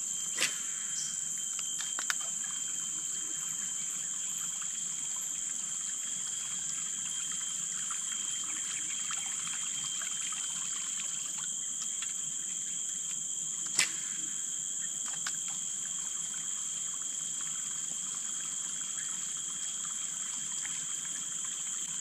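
Water trickling and pouring into a flooded river, under a steady high-pitched insect drone. A few sharp clicks stand out, one near the start and one around the middle.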